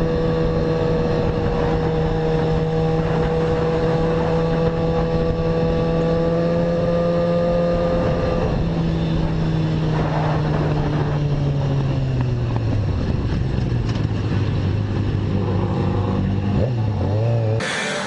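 Sport motorcycle engine running at steady high revs for about eight seconds, then falling in pitch as the bike eases off and settling at a lower steady note.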